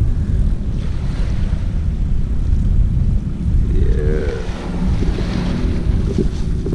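Wind buffeting the camera's microphone: a heavy, gusting low rumble. A short wavering tone rises and falls about four seconds in.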